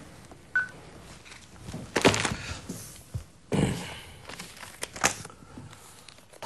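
Cardboard document folders being handled and set down on a desk: paper rustling and a few dull thuds about two, three and a half, and five seconds in. A single short beep sounds about half a second in.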